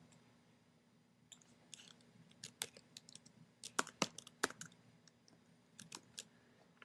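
Faint typing on a computer keyboard: an irregular run of short key clicks, a few of them louder, stopping about a second before the end.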